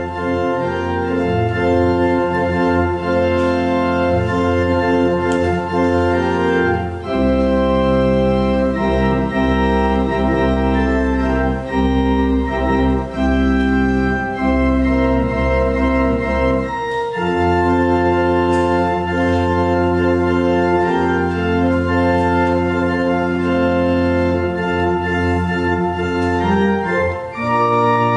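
Church organ playing long held chords over deep pedal bass, the chords changing about every ten seconds.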